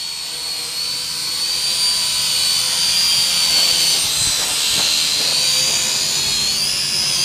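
Small quadcopter drone in flight: its motors and propellers make a steady, high-pitched whine whose pitch drifts slightly up and down, rising a little near the end.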